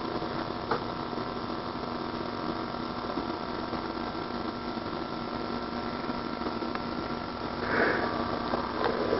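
Steady electrical hum with tape hiss on an old camcorder recording, with two brief louder sounds near the end.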